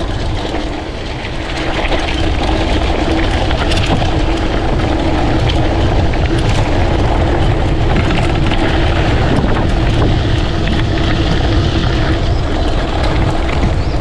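Wind buffeting the microphone of a handlebar-mounted GoPro as a mountain bike rolls down a dirt track, with tyre noise on the dirt and scattered small clicks and rattles from the bike over the bumps.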